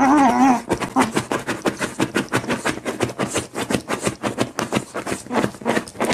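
A beagle whining briefly at the start. Then rapid scratching, several strokes a second, as it digs at a fabric sofa cushion with its front paws.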